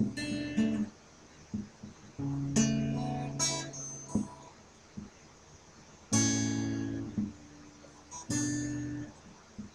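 Acoustic guitar played by hand: a few separate chords strummed with pauses between them, each left to ring for about a second before dying away.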